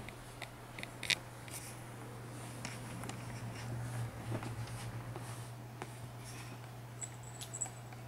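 Faint rustling, scratching and light clicks of a Siamese cat stirring and batting at a feather toy on a cloth-covered chair, over a steady low hum.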